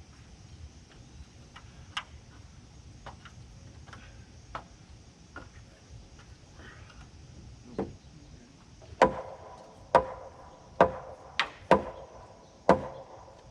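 Hammer blows on a heavy white oak header being driven into place. A few light knocks come first, then about two-thirds of the way through a run of about six hard strikes follows, each ringing briefly.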